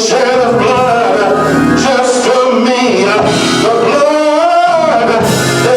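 A man singing a gospel song over musical accompaniment.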